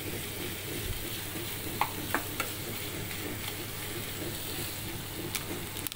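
Chicken pieces in thick masala sizzling as they fry in a pan, stirred and tossed with a spatula, with a few short scraping ticks of the spatula against the pan about two seconds in and near the end.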